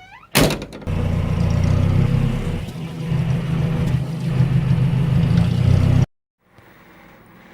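A 1972 Datsun pickup's engine running loudly and steadily, its level rising and falling a little, with a sharp bang about half a second in. It cuts off suddenly about six seconds in. By the owner's account the engine runs like a charm.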